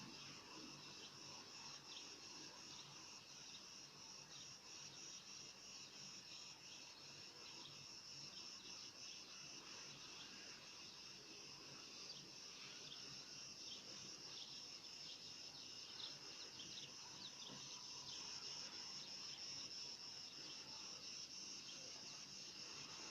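A chorus of insects chirring, a steady high-pitched buzz with fast fine pulsing that carries on evenly throughout.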